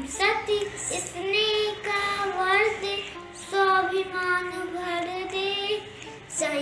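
A boy singing solo, holding long notes that bend and slide in pitch.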